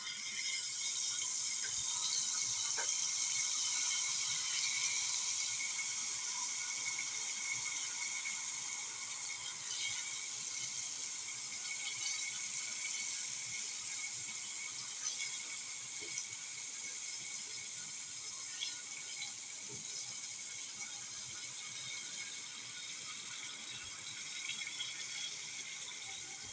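Tomato paste and spices frying in hot oil in an aluminium pot: a steady sizzling hiss that swells over the first few seconds and then slowly eases, with a few light clicks of a ladle against the pot.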